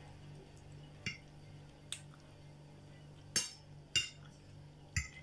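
Metal fork clinking against a ceramic plate while picking up food: about five short, light clinks spread over a few seconds.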